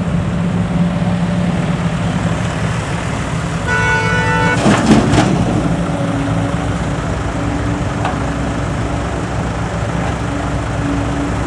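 A truck engine runs steadily. About four seconds in, a vehicle horn sounds for about a second, followed right after by a short, loud rush of noise.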